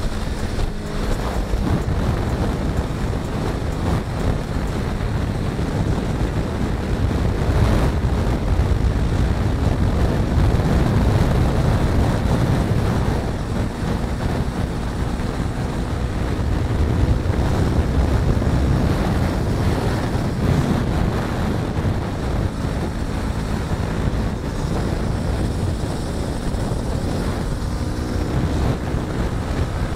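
Heavy wind rush over the microphone on a motorcycle at road speed, with the Yamaha R3's parallel-twin engine running underneath. Its pitch shows faintly near the start and again near the end.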